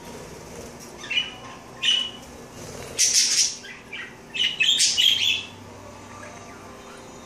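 Pet budgerigars chirping in short bursts, and a bathing parakeet splashing and fluttering its wings in a water dish in two brief bouts about three seconds in and about four and a half seconds in.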